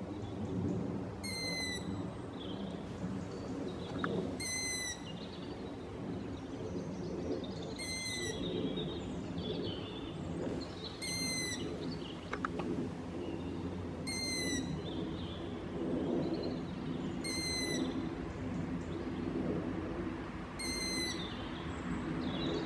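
Long-eared owl fledglings (branchers) giving their begging call: a short, high note repeated seven times, about every three seconds, over a steady low background rumble.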